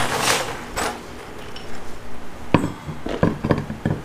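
A mower wheel being slid onto its hub with a brief scrape. Then a run of sharp metal clinks and knocks as the lug nuts are handled, the loudest about two and a half seconds in.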